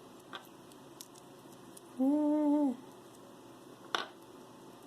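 A woman's short, closed-mouth hum at one steady pitch, lasting under a second about two seconds in, while she untangles a fine necklace chain. A few faint clicks of jewelry handling, the sharpest near the end.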